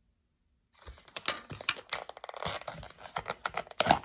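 Clear plastic takeout container with its lid being handled and pried open: a dense run of crinkling and sharp clicks starting about a second in.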